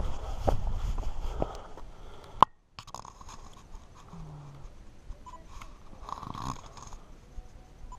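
Footsteps on sandstone slickrock, knocking about once a second, close to the microphone for the first two seconds. A sharp click about two seconds in is followed by faint outdoor quiet with a few small handling noises.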